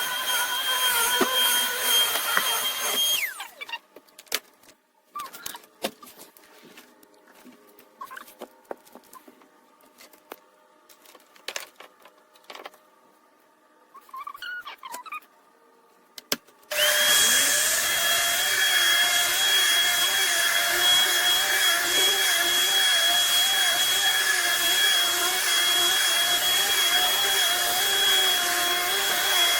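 Vacuum cleaner running with a high whine, switched off about three seconds in and winding down. A stretch of clicks and knocks from handling follows, then about seventeen seconds in a Shark Stratos upright vacuum switches on, its motor spinning up to a steady high whine that runs on.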